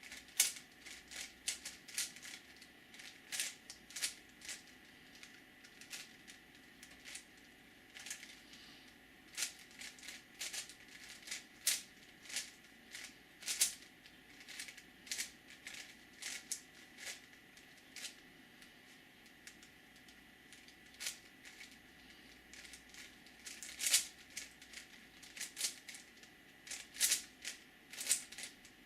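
Plastic 5x5x5 Rubik's cube being turned by hand: quick irregular clicks and clacks of its layers snapping round, coming in clusters with a short lull a little past the middle.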